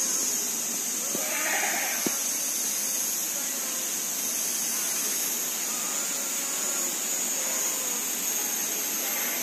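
Outdoor ambience: a steady high-pitched drone, with a short bleat-like call about a second and a half in and a single click just after.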